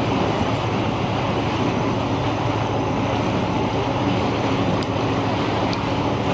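Sightseeing boat under way: its engine running steadily, with water rushing past the hull in a constant noise.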